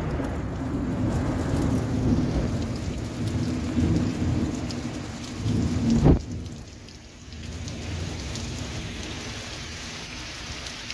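Heavy rain pouring steadily during a thunderstorm, with low rolling thunder through the first half. The thunder is loudest just before it cuts off suddenly about six seconds in, leaving only the steady rain.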